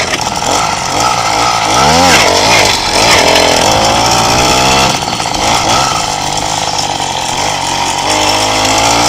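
Small single-cylinder motorcycle engine revving and dropping as the bike is ridden hard: a quick rise and fall about two seconds in, a long climb in pitch through the gears from about three to five seconds, and another climb near the end. The engine has a buzzy, raspy note.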